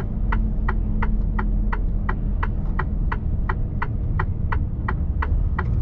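Turn-signal indicator ticking in the cab of a Mercedes-Benz truck, an even clicking about three times a second, over the steady low rumble of the engine and tyres on a snowy road as the truck slows for a U-turn.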